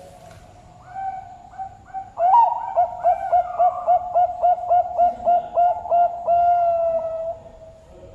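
Zebra dove (perkutut) singing its cooing song: a few opening notes, then a rapid run of about a dozen short clipped coos, about three a second, ending on one long held note.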